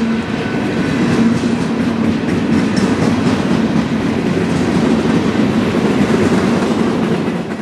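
A Union Pacific freight train rolling past close by, its wheels clicking over the rail joints. A steady locomotive engine hum fades out in the first couple of seconds, leaving the rumble of the cars.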